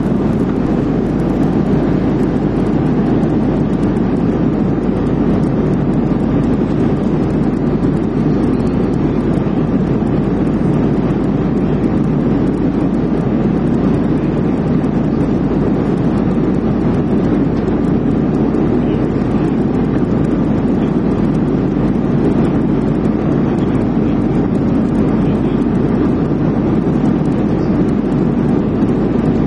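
Loud, steady cabin noise of an aircraft in flight: an even rushing drone.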